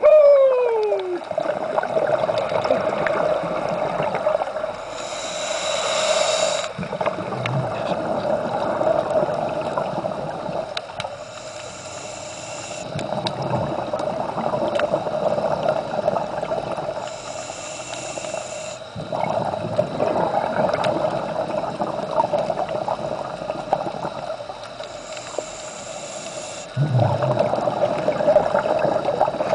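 Scuba diver breathing through a regulator underwater: a short hissing inhale through the demand valve about every six to eight seconds, four in all, each followed by a long rush and burble of exhaled bubbles.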